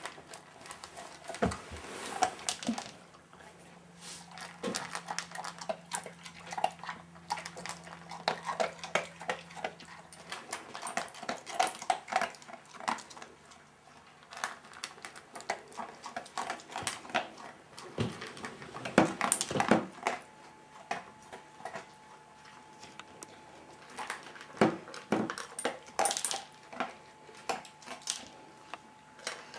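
A dog eating dry kibble from a stainless steel bowl: irregular crunching and clicks of teeth and food against the metal. The bowl clatters louder now and then.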